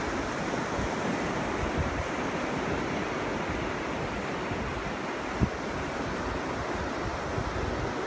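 Ocean surf breaking in a steady wash, with wind gusting on the microphone in low rumbles and one short buffet about five and a half seconds in.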